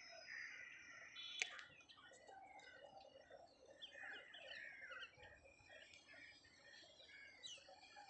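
Faint birds chirping, many quick short calls overlapping, with one sharp click about a second and a half in.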